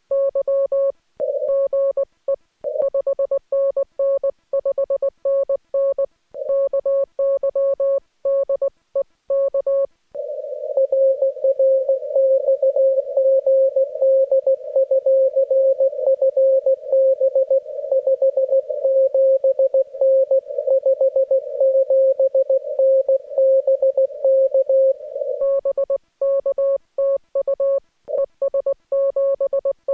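Morse code (CW) heard through an amateur radio transceiver: a single tone near 550 Hz keyed on and off into dots and dashes. About ten seconds in, the clean keyed tone gives way to a rougher, denser-keyed tone with hiss between the characters, typical of a station's signal coming in off the air. The clean tone returns near the end, as in a two-way CW exchange.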